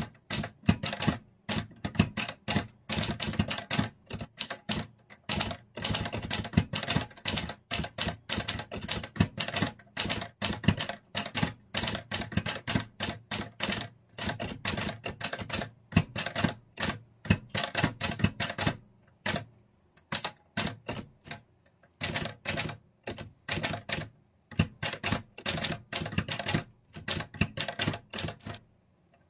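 Olivetti Linea 98 typewriter with a Hangul two-set keyboard, typed at a quick steady pace. The keystrokes land as a dense run of sharp clacks, broken now and then by short pauses.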